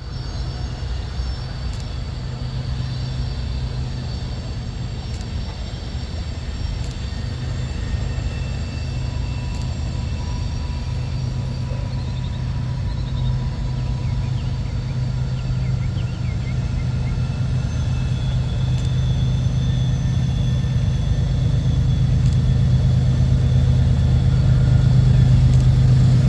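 Diesel locomotive engine running with a steady low drone that slowly grows louder as it approaches.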